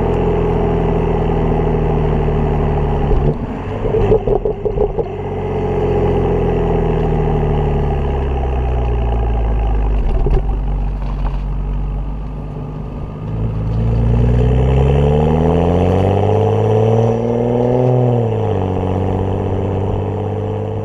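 BMW N55 turbocharged inline-six running through a catless downpipe with no other exhaust changes. It runs steadily, gives a short spell of irregular crackles about four seconds in, then falls slowly in pitch. It then climbs in pitch over about five seconds, drops suddenly, and settles to a steady note.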